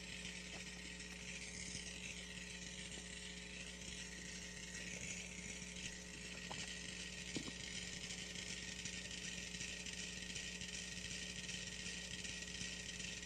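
Many mechanical metronomes ticking at once, a faint, dense clatter of ticks, with about half of them already swinging in step as they synchronize on a shared board.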